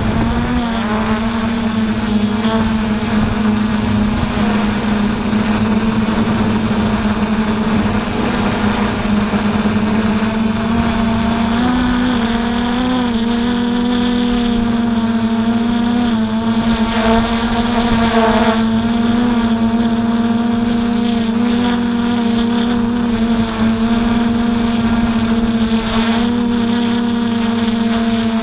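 DJI F450 Flamewheel quadcopter's four electric motors and propellers buzzing steadily in flight, heard from the onboard camera on the frame, the pitch wavering up and down.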